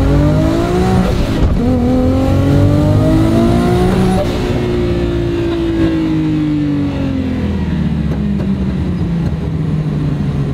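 RB26 inline-six of a Datsun 240Z accelerating hard. The revs climb, drop sharply at an upshift about a second and a half in, and climb again. Then they fall away slowly as the throttle closes, settling lower and starting to rise a little near the end.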